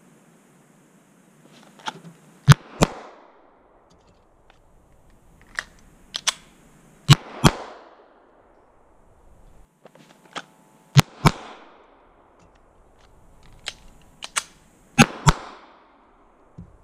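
Springfield XD9 9mm pistol fired in four pairs of shots, two quick cracks about a third of a second apart, a pair roughly every four seconds, each shot trailing off in a short echo. Fainter clicks and knocks come before each pair.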